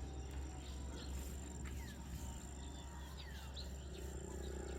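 Rural outdoor ambience: a few faint, short bird chirps over a steady high-pitched insect drone and a low steady rumble.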